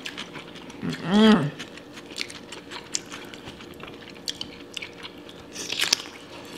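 Mouth sounds of eating: crunchy chewing and biting, with a short vocal sound a little over a second in and a louder crunch near the end as a raw cucumber dipped in sauce is bitten into.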